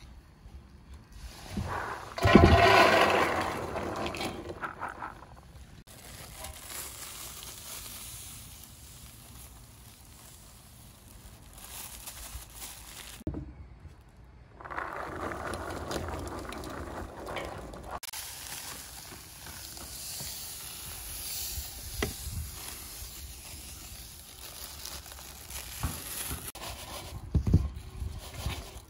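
Pomegranate seeds tipped from a plastic colander into an enamel basin: a loud rushing patter about two seconds in that starts with a thump and dies away over a couple of seconds. Later comes a softer rustle as sugar is added and the seeds are mixed in the basin.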